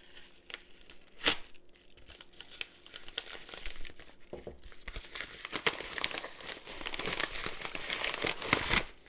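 Plastic packaging crinkling and tearing as it is cut and pulled open with a knife. A single sharp click comes about a second in, then dense crinkling builds and stops suddenly near the end.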